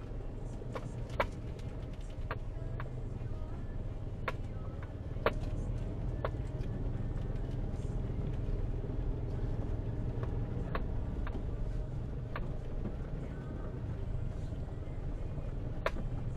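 Car driving slowly over a rough, muddy dirt track, heard from inside the cabin: a steady low engine and road rumble with a scattering of sharp knocks and clicks.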